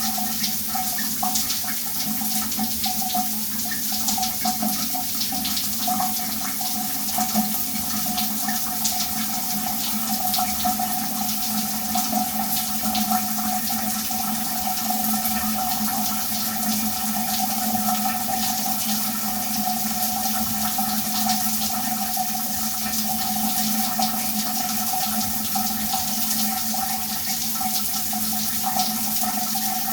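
Shower running: a steady spray of water splashing down, an even hiss with two steady tones inside it.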